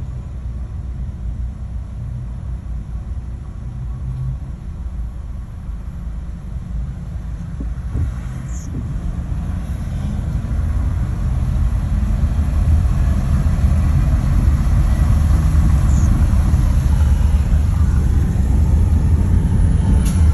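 A car driving, heard as a steady low rumble of engine and road noise that grows louder about halfway through.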